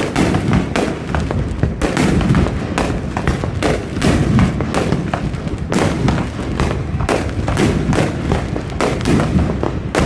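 Aerial fireworks going off in rapid succession: many sharp bangs and crackles, several a second, over a continuous low rumble of echoing booms.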